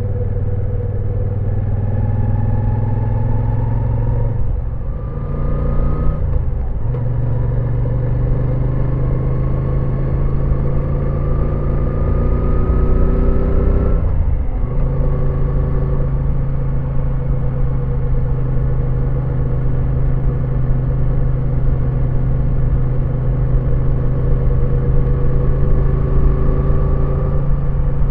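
2018 Moto Guzzi V9 Roamer's air-cooled 853 cc transverse V-twin, heard from the saddle while riding. The engine note climbs under acceleration and drops with upshifts about five to seven seconds in and again around fourteen seconds. After that it holds nearly steady with a slow rise while cruising.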